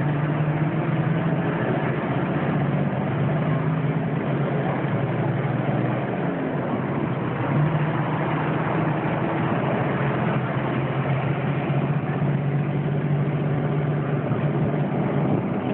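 A vehicle engine running steadily, a low hum under a broad rushing noise, with a slight dip about six seconds in.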